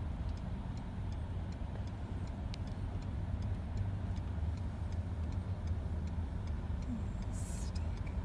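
Steady low road rumble of a car driving in snow, heard from inside the cabin, with a faint, regular ticking running through it. A brief hiss comes near the end.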